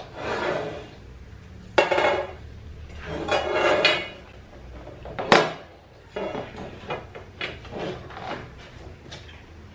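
White metal tubes of an IKEA clothes rack clattering and clinking against each other and the floor while the rack is being put together: a few sharp ringing knocks, the loudest about five seconds in, then lighter clicks.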